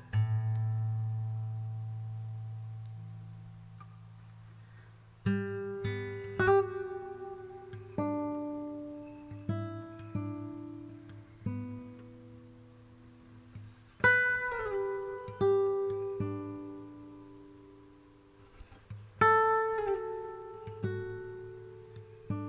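Background music of slow, gently plucked acoustic guitar: a chord rings out at first, then unhurried single notes and chords, each left to die away, with a few notes sliding down in pitch.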